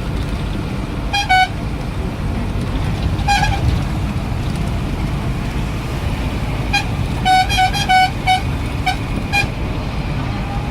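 Road vehicle horn honking in short toots: two about a second in, one around three seconds in, then a quick run of several near the end, over a steady low rumble.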